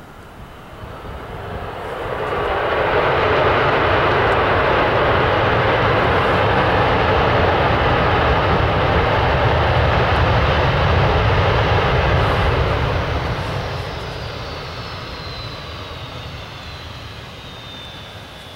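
Boeing 737 jet engines running hard on the runway after landing. The noise builds over about two seconds, holds loud for around ten seconds, then dies away, and near the end a high whine falls in pitch as the engines spool down.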